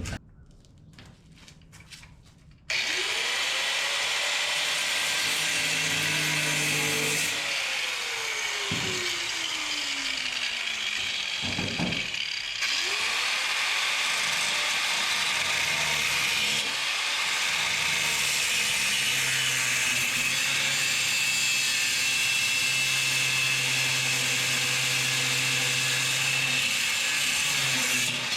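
Electric cut-off tool with an abrasive wheel cutting through steel bed-frame tubing. It starts about three seconds in and runs with a loud grinding hiss. The motor's pitch dips and recovers several times as the wheel bites into the metal.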